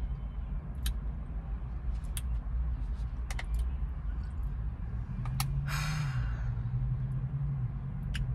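Steady low rumble of a car heard from inside the cabin, with scattered small clicks and crackles of a plastic water bottle being handled and squeezed, and one breathy sigh about six seconds in.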